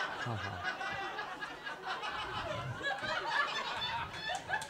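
Audience laughing and chuckling, many voices overlapping.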